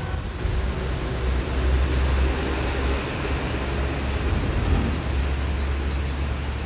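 Steady rushing noise of a flowing river, with a low rumble underneath.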